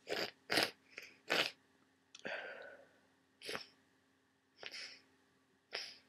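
A person with a heavy head cold sneezing and sniffing, a run of about eight short, sharp nasal bursts with a longer, rougher one just after two seconds. The sneezes are wet and snotty, from congested, swollen sinuses.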